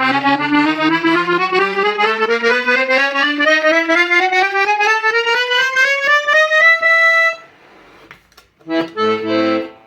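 Hohner Concerto III N piano accordion playing a fast rising run of notes up the treble keyboard, ending on a briefly held top note about seven seconds in. After a short pause, short chords sound near the end.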